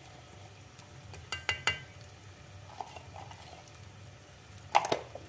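Mushrooms cooking in a pot on a gas stove with a faint, steady sizzle. A few sharp metallic clinks come about a second and a half in, and a spatula scrapes and stirs in the pot near the end.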